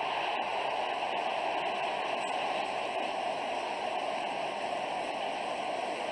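Football stadium crowd cheering steadily just after a goal for the home side.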